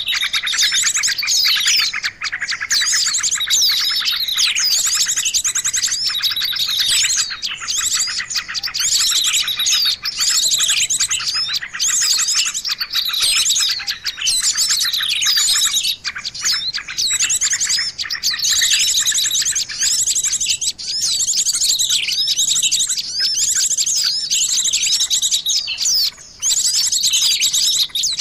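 Many small songbirds chirping and trilling at once, a dense, busy chorus of fast, high, overlapping calls: a bird-lure (suara pikat) recording for drawing in small birds.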